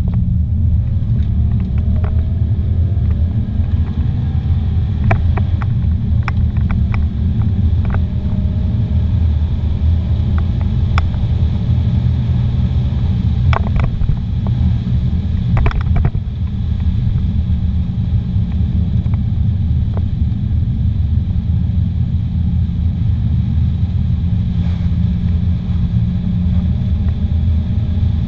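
Steady low rumble of a car driving on a paved road, heard from inside the cabin: engine and tyre noise. A few short sharp ticks come through around the middle.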